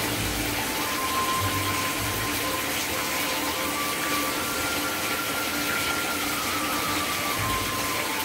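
Water running from a bathtub spout into an empty tub, a steady rushing stream with no change.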